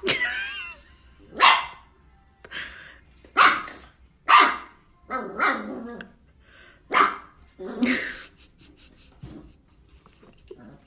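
Small puppy barking at its own reflection in a mirror: about ten short, sharp barks at irregular intervals, with a wavering yip in the first second.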